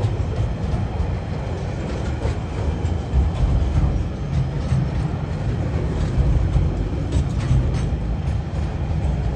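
Container wagons of a long freight train rolling past close by: a steady heavy rumble of steel wheels on the rails, with scattered clicks and knocks.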